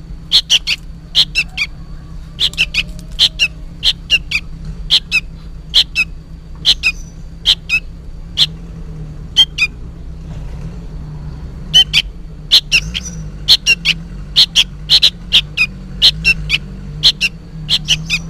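Juvenile sooty-headed bulbul calling noisily: a rapid run of short, sharp calls, several a second, with a pause of a few seconds midway. The uploader guesses these are calls to its parent but is not sure. A steady low hum runs underneath.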